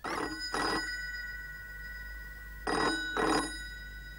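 Landline telephone ringing: two double rings about two and a half seconds apart, the bell tone lingering between them.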